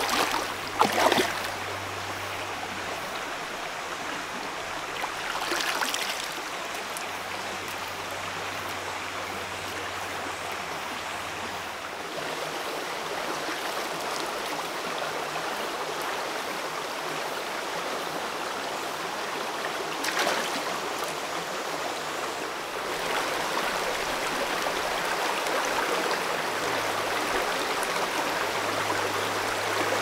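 Shallow, rocky mountain stream flowing steadily, with brief splashes of someone wading through the water, one about a second in and a few more later.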